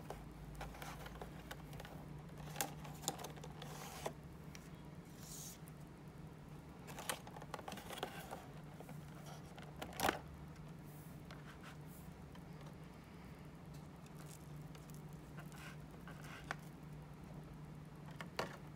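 Clear plastic cake box being handled and opened: scattered plastic crinkles, rustles and clicks as the paper band comes off and the lid is lifted from its base, the sharpest snap about ten seconds in.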